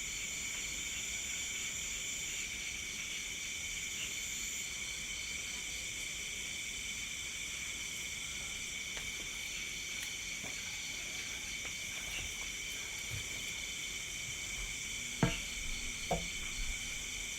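Night insects, crickets among them, chirring steadily in several high pitches, one with a fast pulsing trill. Two brief knocks sound near the end.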